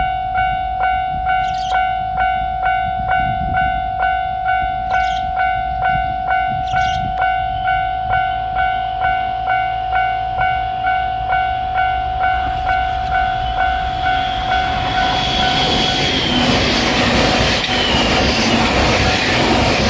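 Japanese railway level-crossing alarm bell ringing, a steady electronic ding repeating at an even pace; about fifteen seconds in, a passing train's rumble and wheel noise rise and drown it out.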